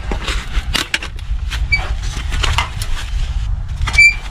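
Folding sheet-metal charcoal chimney starter being opened out in gloved hands: a run of light metal clicks and rattles, with a loud ringing metal clank about four seconds in. Wind rumbles on the microphone throughout.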